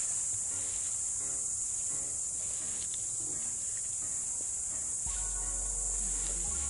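Steady high-pitched chirring of crickets, one unbroken trill with no pauses.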